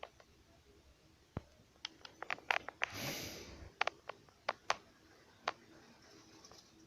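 A run of scattered sharp clicks and ticks, bunched between about two and three seconds in, with a short rustle about three seconds in.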